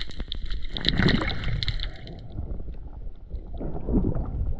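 Muffled water sloshing and rushing, recorded underwater through a GoPro's housing while snorkelling near the surface. It surges louder about a second in and again near the end, and rapid crackling clicks fill the first two seconds.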